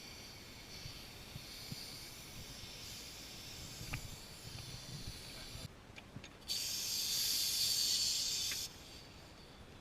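Air hissing: a steady hiss that stops about six seconds in, then a louder, brighter hiss lasting about two seconds.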